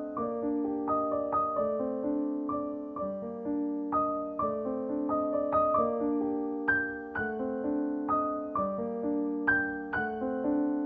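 Background piano music: a gentle melody of struck notes that each fade away, its phrase repeating about every three seconds.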